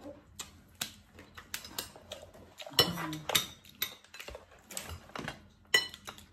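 Steamed lobster and crab shells being cracked and picked apart by hand: a run of irregular sharp cracks and clicks.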